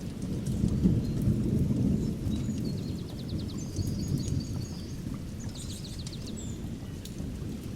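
Distant thunder rumbling low and continuously, swelling in the first couple of seconds, with small birds chirping and trilling briefly about halfway through and faint crackles from a fireplace.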